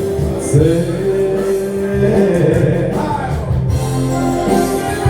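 Live band music: a male singer ends a sung line on a held note early on, then the band plays on with sustained melody notes over a steady bass beat.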